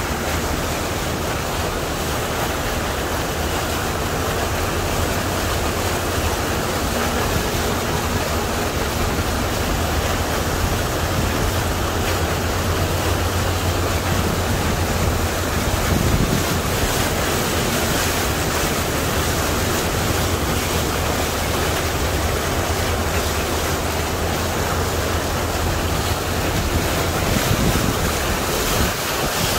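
Floodwater surging and splashing around the front of a vehicle as it drives through a flooded street, a steady rushing wash with a constant low engine hum beneath.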